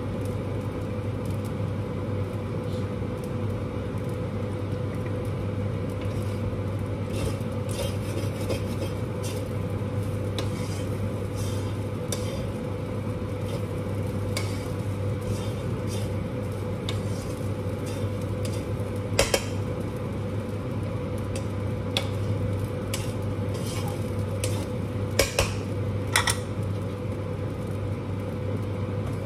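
Metal spatula stirring and scraping in a wok of frying rice, with repeated short clinks against the pan and a few louder clanks in the second half, over a steady hum.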